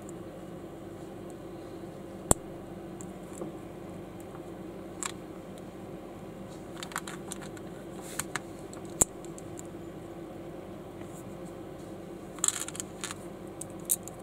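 Plastic lego-compatible building bricks clicking and tapping as they are handled and pressed together. About a dozen sharp clicks are scattered through, the loudest about two seconds in and nine seconds in, with a quick cluster near the end, over a steady low hum.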